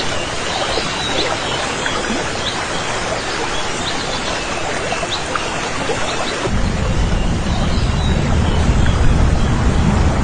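Steady rushing outdoor noise with faint, short, high chirps scattered through it; about six and a half seconds in, a deep low rumble joins it.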